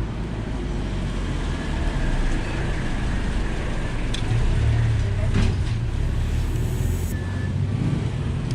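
Road traffic rumbling, with the low rumble swelling about midway as a vehicle passes, and a couple of light clicks from the wiring work.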